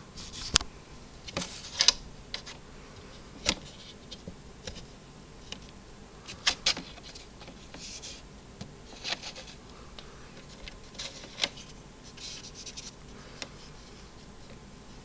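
Handling noise from an antique Edison mimeograph's hinged wooden frame: irregular clicks and light knocks with short rustles, a sharp click about half a second in and another pair around the middle.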